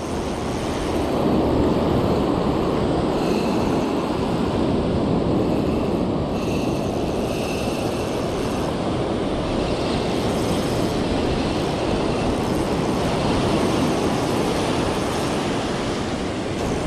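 Ocean surf washing up over the sand around the angler's feet, a steady rush of noise.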